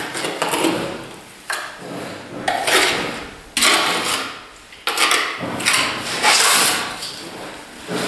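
Steel plastering trowel scraping gypsum plaster off a hawk and spreading it onto a masonry wall in repeated scraping strokes, roughly one a second. This is the thin bedding coat laid before a corner bead is stuck on.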